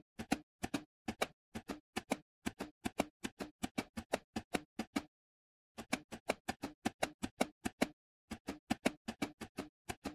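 Enigma cipher machine keys clacking as letters are typed one at a time, the rotors stepping with each key: a quick, even run of sharp clicks, often in close pairs, with two short pauses about five and eight seconds in.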